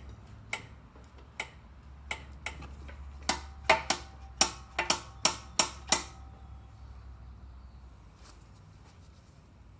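A run of about a dozen sharp metallic taps and clinks from hand tools on small-engine parts, coming faster and louder toward the middle, some with a short ring, and stopping about six seconds in.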